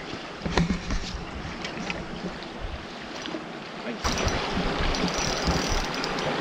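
Rushing river water with wind buffeting the microphone, as an uneven low rumble under a steady wash. It gets louder about four seconds in.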